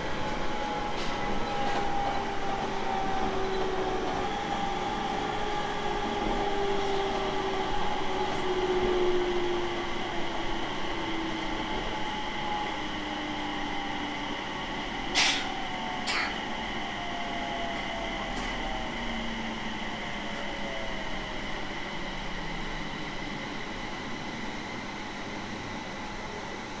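JR East 701 series electric train slowing down, its motor and inverter whine falling steadily in pitch as it brakes toward a stop. Two sharp knocks come about a second apart midway.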